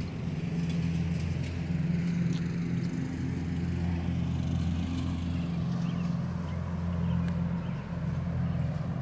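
A steady low engine or motor hum runs throughout.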